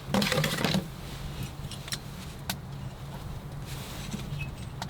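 A metal heat-powered stove fan being handled: a second of clinking and rustling, then a few separate clicks, over a steady low hum.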